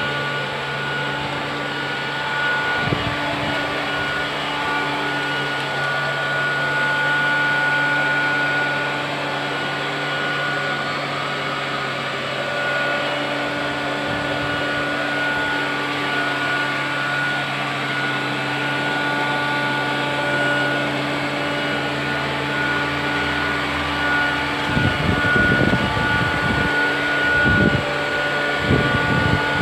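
Electrolux Trilobite 2.0 robot vacuum cleaner running, its suction motor giving a steady whine over a rush of air as it cleans a concrete floor. A few low rumbling bursts come in near the end.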